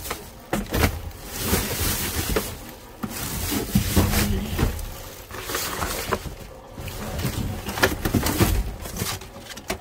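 Wet cardboard boxes and plastic bags being shifted and rummaged through inside a dumpster, with irregular rustling, crackling and knocks, while heavy rain falls.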